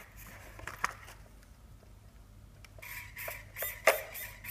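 Small RC hobby servos whirring in short bursts as they are driven from the transmitter's left stick on the rudder channel. There are a few bursts near the start, a quiet stretch, then a quick run of them in the second half, the loudest about four seconds in.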